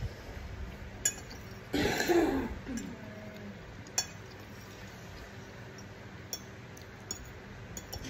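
Metal spoon and fork clinking a few times against a ceramic soup bowl while eating, with a loud eating sound from the mouth about two seconds in.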